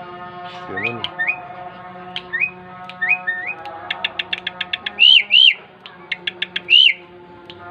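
Young Asian pied starling (jalak suren) calling: a series of short rising whistled notes, a rapid run of clicks about four seconds in, then loud arched whistles around five seconds and again near seven seconds.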